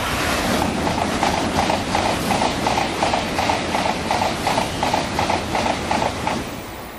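Shinkansen bullet train passing close at high speed: a steady rush of wheel and air noise with a regular beat about three times a second as the cars go by, easing off near the end.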